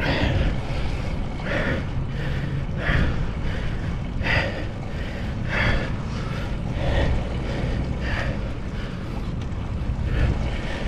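Wind rushing over the microphone and tyre rumble from a road bike riding along a paved bike lane, with a short puff of sound about every second and a half.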